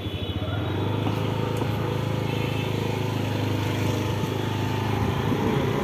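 Two-wheeler engine running at a steady pace while riding, a low steady drone.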